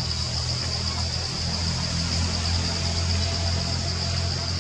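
Forest ambience: a steady high-pitched insect drone over a low, steady rumble.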